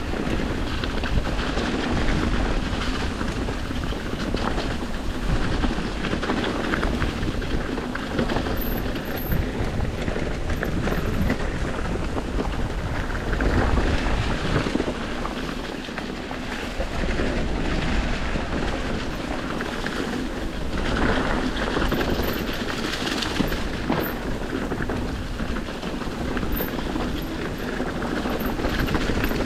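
Mountain bike ridden over rough singletrack: tyres rolling over dirt and rocks, the bike rattling and clattering, with wind rumbling on the microphone.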